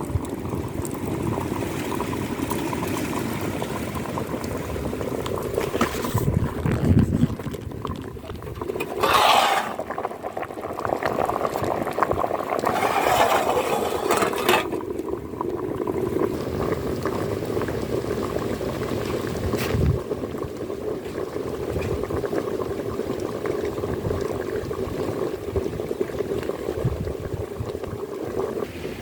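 Liquid bubbling steadily, with two louder rushing surges about nine and thirteen seconds in.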